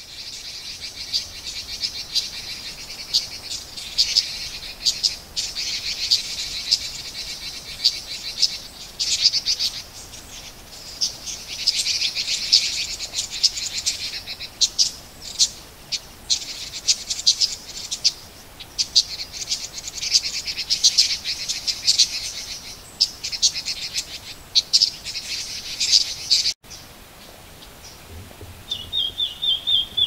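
Red-billed leiothrix giving rapid chattering calls in bursts of a few seconds each. Near the end, after a brief break, a short run of repeated clearer notes follows.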